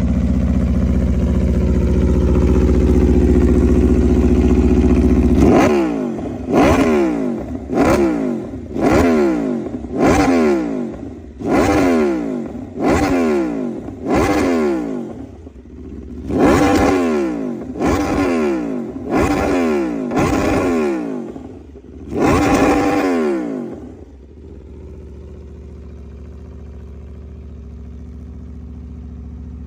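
Aprilia motorcycle engine held at steady high revs for about five seconds, then blipped sharply over and over, about once a second, its pitch falling away after each blip. Near the end it drops back to a quieter, steady idle.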